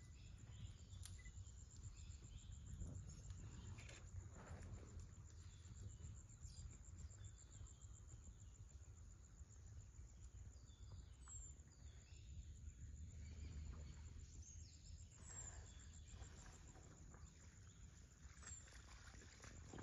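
Near silence: faint outdoor ambience with a steady low rumble and scattered faint ticks.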